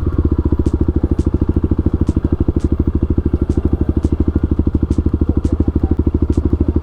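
Motorcycle engine idling steadily, a loud, even, rapid pulsing that does not change pitch.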